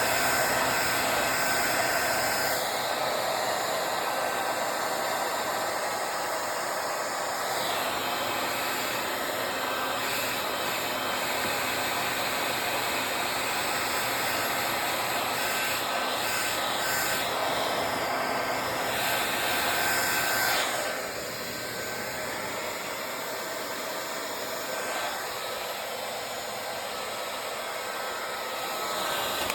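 Hair dryer blowing steadily, a continuous rush of air with a faint whine. Its tone shifts several times, and it drops in level about two-thirds of the way through. It is switched off at the very end.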